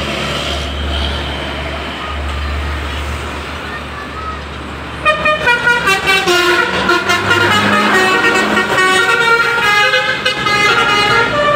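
A low steady rumble, then about five seconds in a bus's Basuri 'telolet' musical horn starts playing a quick melody of many changing notes, loud and continuous.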